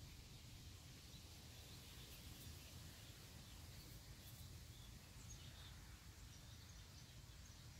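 Near silence: faint outdoor room tone with a steady low hum and a few faint, scattered bird chirps.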